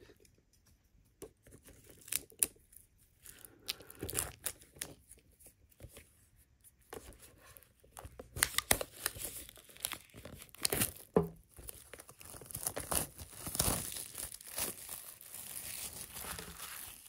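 Plastic packaging crinkling and tearing as it is handled: scattered crackles at first, growing denser and louder about halfway through into a continuous rustle.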